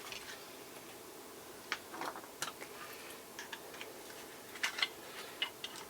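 Faint, scattered small clicks and ticks of plastic parts being handled and pried on an opened digital multimeter, at irregular moments with a few bunched together after the middle.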